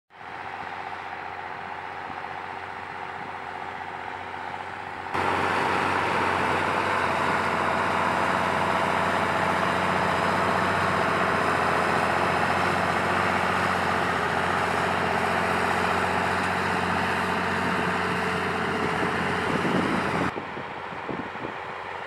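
Lamborghini Racing 190 tractor's diesel engine working steadily under load as it pulls a plough through the soil. The sound steps up suddenly about five seconds in and drops back suddenly near the end.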